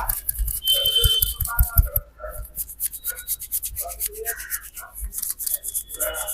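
A barber's hands rubbing and kneading a customer's head and hair close to the microphone in a massage, with a fast scratchy rhythm of strokes and a quick run of about five soft thumps around a second in.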